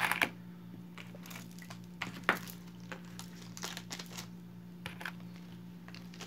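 Bead bracelets being handled and set down: light rustling and small clicks, with two sharper clicks near the start and about two seconds in, over a steady low hum.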